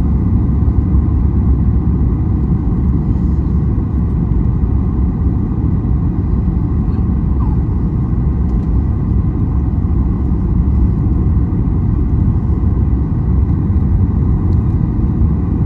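Steady low rumble inside the cabin of a Boeing 737 MAX 8 in flight on approach: its CFM LEAP-1B engines and the airflow over the fuselage, heard from a rear economy seat.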